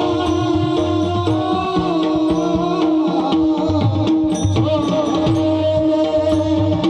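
Devotional Marathi bhajan music: a mridang (barrel drum) playing repeated deep strokes under a steady held drone and a bending melody line.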